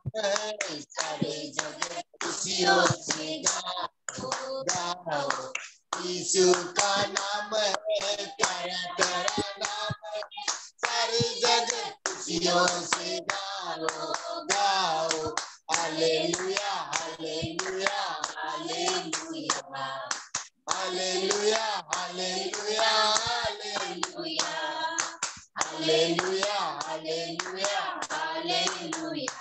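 A small group of women singing a hymn together and clapping their hands in time, heard over a video call.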